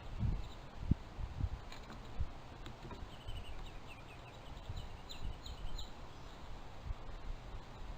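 A bird calling a rapid series of short, high, slightly falling chirps for a few seconds, a few seconds in. Low thumps and bumps near the start.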